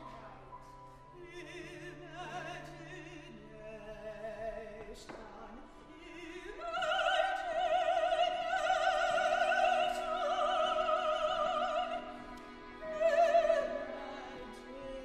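Operatic singing from a contemporary chamber opera: a high voice sings short phrases over soft ensemble accompaniment, then holds a long high note with wide vibrato for about five seconds on the word "Imagination?". A second loud sung note follows briefly near the end.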